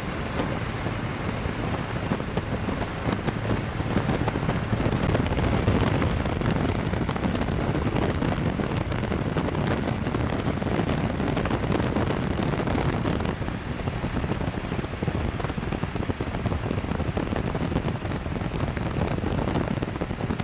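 Hurricane Dorian's strong wind and heavy rain: a steady rush of noise, heaviest in the low end, with no let-up.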